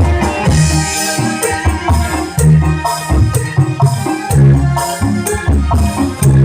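Loud music with a heavy bass line, shaker-like percussion and melodic instruments.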